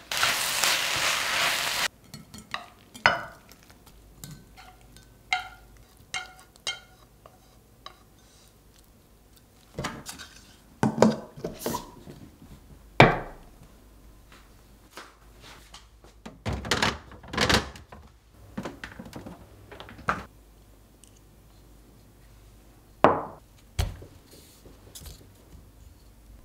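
Food sizzling in a frying pan for about two seconds, cutting off abruptly. Then come light ringing clicks and taps, and scattered knocks and thunks as glass food-storage containers with bamboo lids are handled and set down on a cloth.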